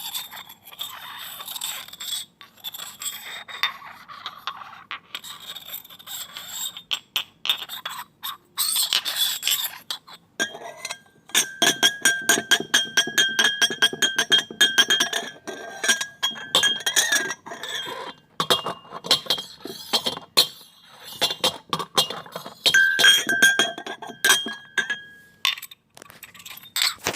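Glass scraping and rubbing against glass, then from about ten seconds in rapid, repeated clinking of glasses, each strike leaving a high ringing tone.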